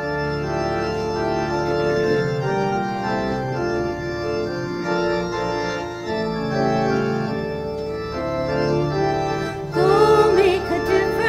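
Church organ playing the opening chords of a hymn, held notes changing steadily. Singing voices come in near the end.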